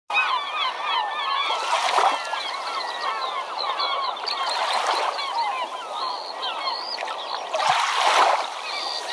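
A large flock of birds calling continuously: many short, overlapping rising and falling calls. Three louder surges of rushing noise come about two, five and eight seconds in.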